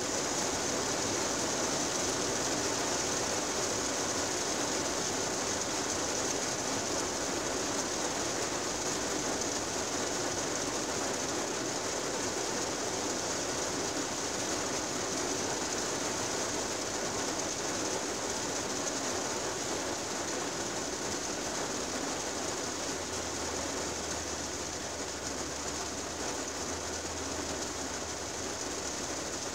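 Steady rain pattering on a car's windshield, heard from inside the cabin, easing slightly near the end.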